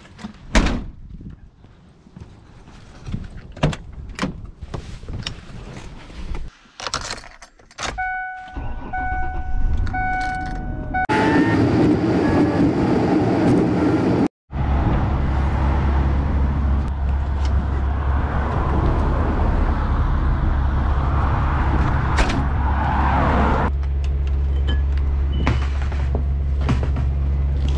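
Knocks and clatter as a large car spoiler is handled and loaded into the back of a car, then a car's warning chime dings repeatedly. After a sudden cut, a car runs with a steady low engine and road drone heard from inside the cabin.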